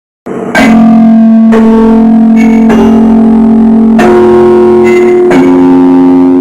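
Music: a slow melody of held, distorted notes, a new one struck about every second, starting after a moment of silence.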